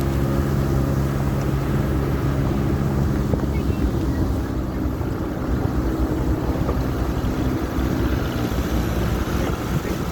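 Engine running steadily under a constant rushing noise, its low hum strongest for the first few seconds.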